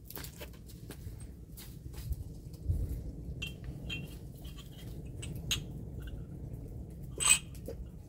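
Scattered light clicks and knocks of plastic jugs and cups being handled, over a low steady rumble, with one louder, sharp sound about seven seconds in.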